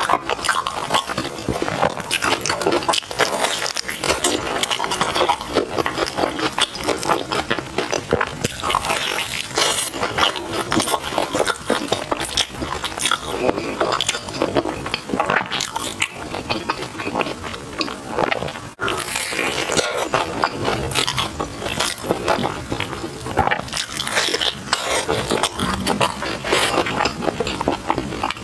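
Chewing and biting of sticky glutinous rice sweets, wet smacking mouth sounds with dense small clicks, going on without a break except a brief pause about two-thirds of the way in.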